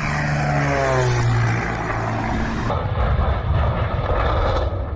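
Airplane engine passing by, its pitch falling steadily as it goes. After about two and a half seconds it gives way to a rough rumbling noise.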